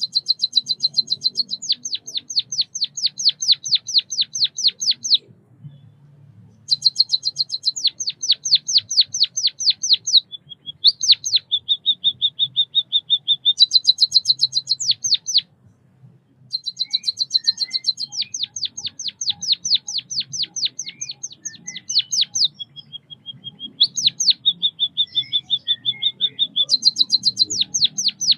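White-headed munia singing: runs of rapid, evenly repeated chirps, about five a second, in phrases a few seconds long with short pauses. Some phrases carry a steady held whistle.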